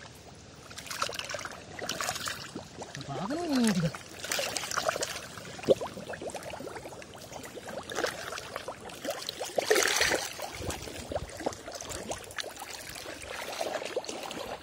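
Shallow muddy water splashing and sloshing around a person wading and working through it by hand. There is a sharp knock about six seconds in and a bigger splash near ten seconds.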